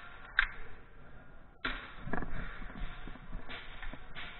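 A sharp crack about half a second in, then a sudden rush of noise with a few thuds and knocks from about a second and a half in.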